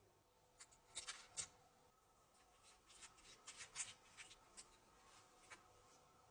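Faint clicks and light scraping of small hard parts being handled, in quick clusters about a second in and again between three and four seconds.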